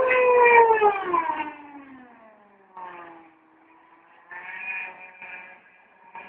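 Twin JetCat turbines of an RC Mystic C5000 powerboat whining, loud at first, the pitch falling steadily and fading over about two seconds. A fainter, steadier whine with short breaks comes back about four seconds in.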